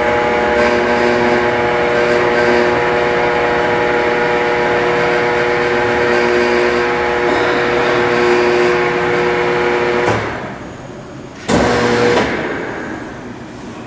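P&H WP12 welding positioner's electric drive motor and gearing running with a steady hum. It stops about ten seconds in, then makes a short second run about a second and a half later.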